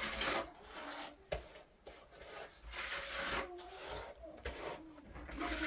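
Scraping strokes, three of them a few seconds apart, with faint voices between.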